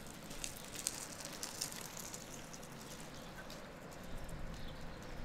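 Footsteps of a person walking: a run of light, sharp clicks and scuffs, thickest in the first half and sparser toward the end.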